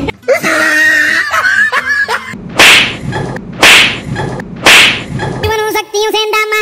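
Three loud whip-swish sound effects, about a second apart, each a short sharp swish that dies away quickly.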